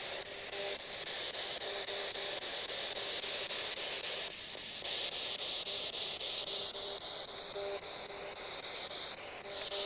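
Handheld spirit box (radio-sweep ghost box) giving out a steady hiss of radio static, with faint regular ticks and a faint tone that comes and goes.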